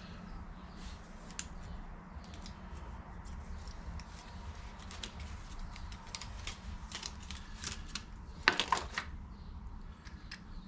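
Small irregular clicks and rattles of new shock absorber parts, the plastic dust cover and the mount, being handled and fitted together, with a louder clatter about eight and a half seconds in. A steady low hum runs underneath.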